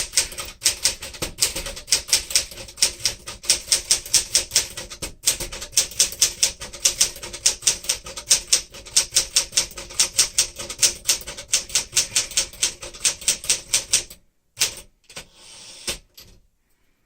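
Rapid, steady typing on a 1964 Smith-Corona Sterling manual typewriter, about five or six keystrokes a second with one short pause. The typing stops about three seconds before the end, followed by a couple of softer mechanical sounds.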